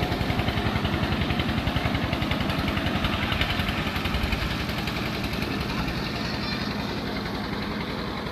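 An engine running steadily with a rapid, even pulse, growing slightly quieter in the second half.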